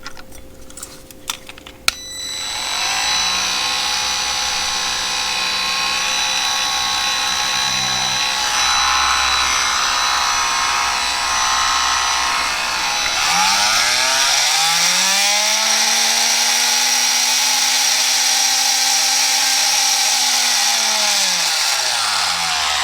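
Milwaukee M12 oscillating multi-tool running with no load, giving a steady buzz. About thirteen seconds in its pitch rises to a higher speed and holds, then falls away as it winds down near the end.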